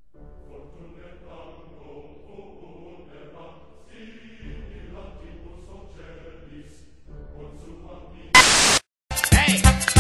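Quiet background music with a soft choral feel. About eight seconds in, a sudden loud burst of noise is followed by a brief dropout, then loud dance music with a strong, regular beat.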